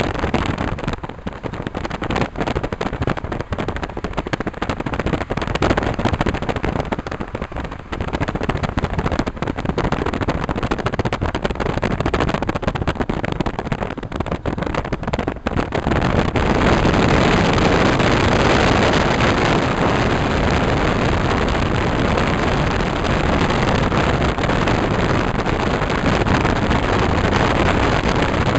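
Car travelling at speed on a highway: steady road and wind noise, choppy at first and steadier and louder from about halfway through.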